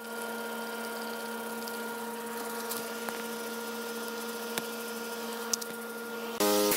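Steady hum of an air conditioner unit, with a few faint clicks from a trigger spray bottle as degreaser is sprayed onto an oil pan. About six seconds in, a louder hum of a different pitch cuts in.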